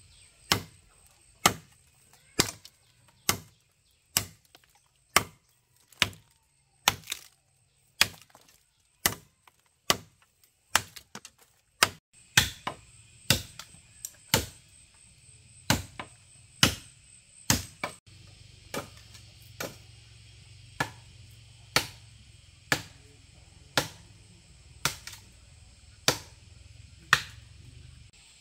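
A hand tool chopping in a steady series of sharp strikes, about one a second, kept up without a break.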